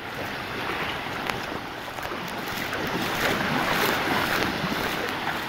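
Surf breaking and washing over rocks at low tide, the rush of water growing louder about halfway through, with wind on the microphone.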